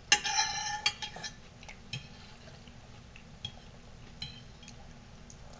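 Cutlery clinking and scraping against dinner plates. A sharp ringing clink comes at the start, then lighter clicks and clinks a few times.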